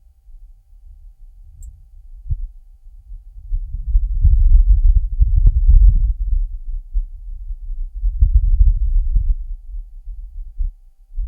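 Wind gusting on the surface of Mars, picked up by the Perseverance rover's microphone with the rover's own noise filtered out. It is a low rumble that swells in gusts, loudest from about four to six seconds in and again around eight seconds.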